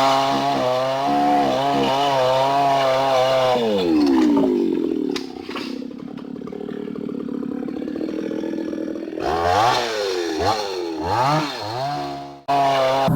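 Hyundai mini chainsaw running at full revs, its pitch wavering under load as it cuts rubber tree wood. About four seconds in it drops to a steady idle, then it is revved up in a few short blips before the sound cuts off suddenly near the end.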